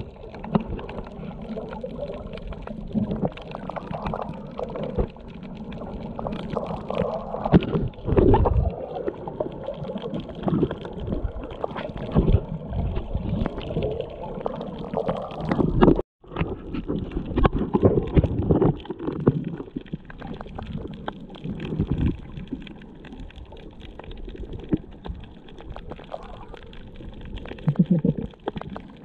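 Muffled underwater water noise picked up by a GoPro Hero 7 Black held below the surface: water sloshing and gurgling, with irregular knocks and clicks. The sound drops out briefly about halfway through.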